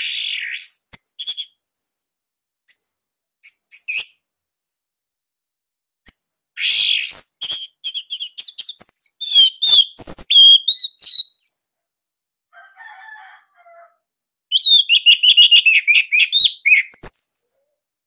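Orange-headed thrush singing: loud phrases of fast, varied whistles and chattering notes, a short one at the start, a long phrase of several seconds in the middle and another near the end, with silent pauses between.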